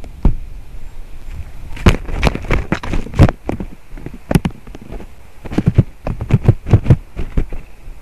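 Spotted woodpecker pecking at the wood of the tree close to the microphone: irregular sharp knocks, coming in quick runs.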